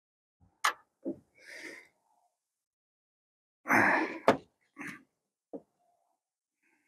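A few sharp metallic clicks and knocks from a wrench being handled at a corroded truck battery terminal, with a brief rustle. About four seconds in there is a louder clatter as a combination wrench is set down on the metal radiator support.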